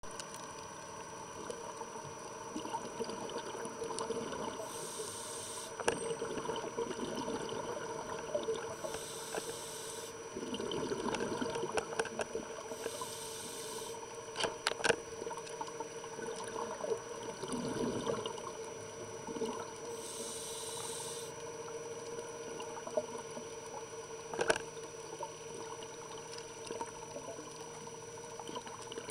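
Underwater sound picked up through a camera's housing: a steady hum, with a diver's scuba breathing. Four hissing inhalations come several seconds apart, with bubbling exhalations between them, plus a few sharp clicks.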